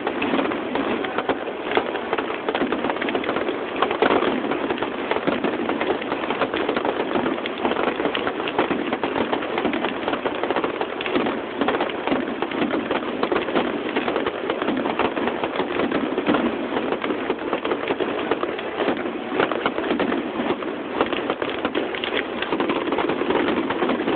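Fireworks finale: a dense, unbroken barrage of rapid bangs and crackling, with a slightly louder burst about four seconds in.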